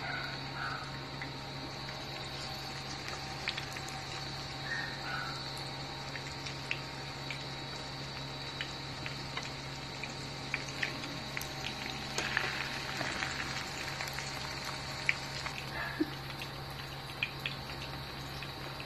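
Vegetable lumpia shallow-frying in hot oil in a pan: a steady low sizzle with scattered small crackles and pops, over a steady electrical hum from the hotplate.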